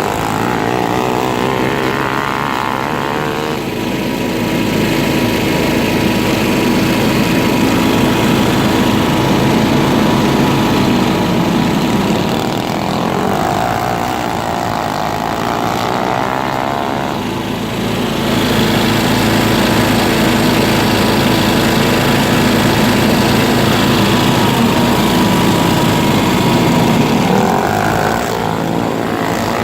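A vehicle engine running without a break, its revs rising and falling several times.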